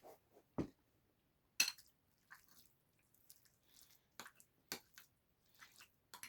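A spoon clicking and scraping against a dish as curry and kimchi are eaten, with soft wet eating sounds between, sped up to double speed. The clicks come singly, every second or so.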